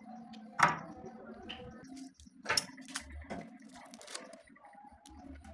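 Several sharp clicks and taps of small plastic parts being handled, a bottle cap and a syringe needle in its packaging, over a low steady hum. The loudest click comes a little over half a second in, and a cluster of lighter ones follows around the third and fourth seconds.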